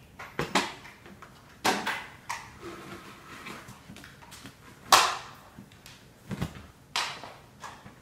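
A string of irregular knocks and scrapes from a mop and its handle being handled on a hardwood floor, the loudest about five seconds in.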